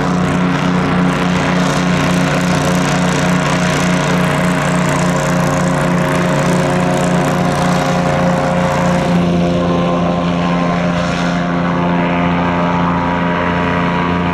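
SM-440 airboat running under power, its four-stroke engine and air propeller giving a steady, pulsing drone. About nine seconds in, the sound turns steadier and duller.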